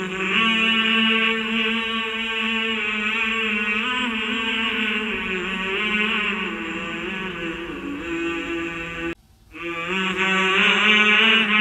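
Background vocal chant: slow, melodic singing over held notes, with no speech. It drops out briefly about nine seconds in, then resumes.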